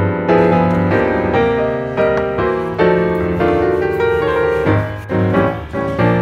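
Background music: a piano playing a gentle melody of struck notes, each ringing and fading before the next.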